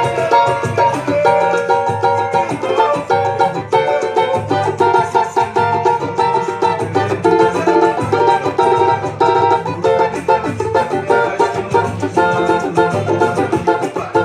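Rozini JR11 four-string Brazilian pagode banjo strummed in a steady rhythmic levada, its head damped by a muffler and tape so the sound is dry ("bem sequinho") with the high overtones cut. It plays along with a backing song whose bass line is heard underneath.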